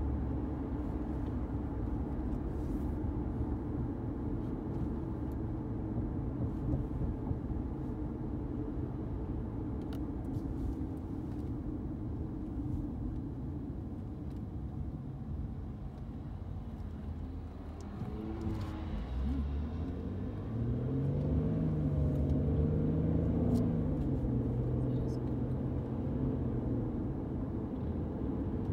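Steady road and engine noise of a car driving, heard from inside the cabin. About two-thirds of the way through, a deeper engine tone rises, holds and then falls away as the car accelerates.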